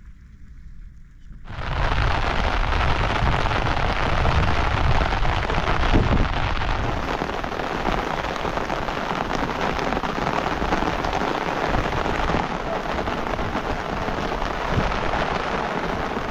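Heavy rain pouring down steadily, starting abruptly about a second and a half in, with a low rumble in the first few seconds.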